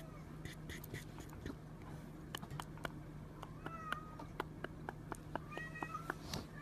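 Cat meowing in short high-pitched mews, about twice, with scattered sharp clicks.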